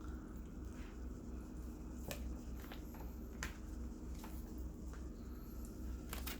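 Scattered small clicks and soft wet sounds of someone eating a Costco rotisserie chicken, over a steady low hum.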